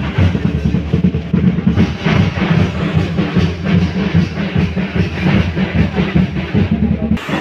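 Music with loud, rapid, dense drumming, heaviest in the low end. The sound changes abruptly just before the end.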